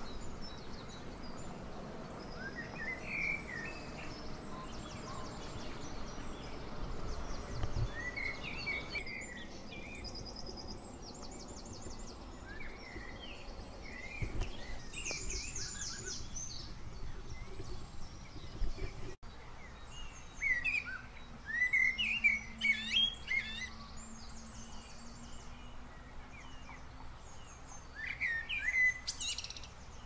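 Birdsong: several birds calling in short chirps and quick trills, with a burst of louder song a little after the middle and another near the end.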